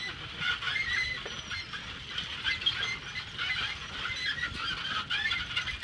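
Many birds chirping and calling at once, short high notes at different pitches, over the low rumble of a bicycle rolling along a paved road.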